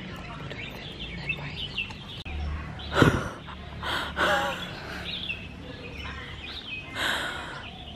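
Birds chirping intermittently in short calls, with a brief louder burst about three seconds in.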